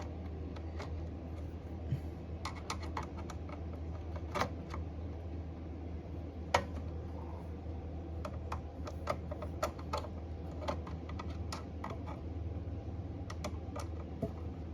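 Irregular small clicks and taps of a flathead screwdriver and wire lugs on an AR timer's terminal screws as the ground wire is fastened, over a steady low hum.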